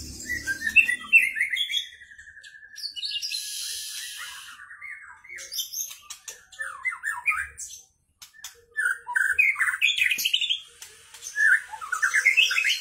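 Caged white-rumped shama singing: phrases of quick rising and falling whistled notes and rapid trills, broken by short pauses, with a short harsh hissing burst about three seconds in.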